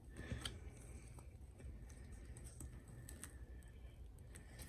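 Faint rustling and scattered small clicks of a flexible silicone mold being peeled by gloved hands off a cured epoxy resin piece.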